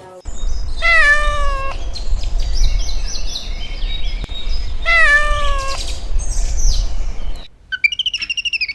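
Domestic cat meowing: two long meows falling in pitch, about a second in and about five seconds in, with shorter, higher-pitched mews between them and again near the end, over a steady low rumble.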